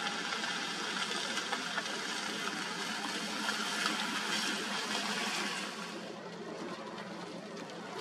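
Rain falling steadily, a dense hiss with fine pattering, becoming quieter about six seconds in.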